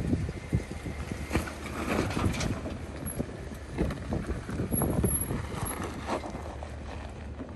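Jeep Wrangler Unlimited on oversized off-road tires crawling slowly over rock: a low, steady engine rumble with wind on the microphone, broken by a series of knocks and crunches as the tires and suspension work over rock and loose stones.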